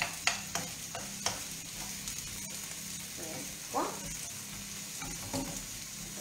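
Diced zucchini sizzling in hot oil in a frying pan, stirred with a wooden spoon that clicks against the pan now and then, mostly in the first couple of seconds.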